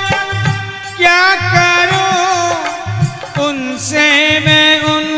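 Bhajan sung live: male voices holding long, ornamented notes over a harmonium, with a hand-drum beating about twice a second.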